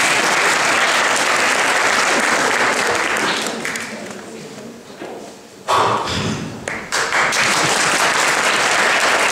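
Audience applauding. The clapping dies away about halfway through, then a fresh round breaks out suddenly near six seconds in.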